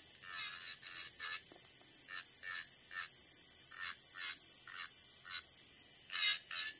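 Electric nail drill running at low speed, about 1000 RPM, with a barrel bit grinding gel base off a fingernail. A steady high whine, with short scratchy grinding strokes about twice a second as the bit touches the nail.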